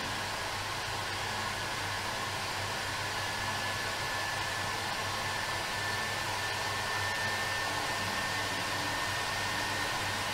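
Steady rushing air noise from a laser wheel-marking station, its air or fume extraction running while the laser burns the coating off the rim edge. A faint thin whine climbs slightly in pitch through the middle.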